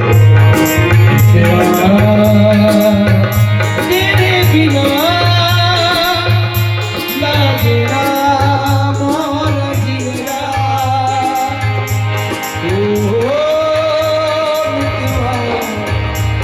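Music with a steady, repeating low beat, rattling percussion and a wavering melody line above it.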